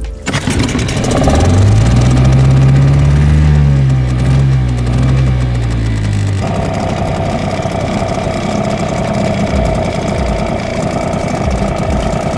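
Mariner outboard motor on an inflatable dinghy running: its pitch climbs and falls back over the first several seconds, then it settles into a steadier, higher drone from about six seconds in.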